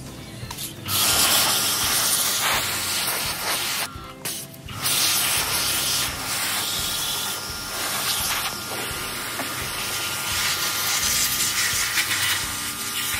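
High-pressure water spray hissing against washing-machine parts as they are rinsed clean. It starts about a second in and breaks off briefly around four seconds in.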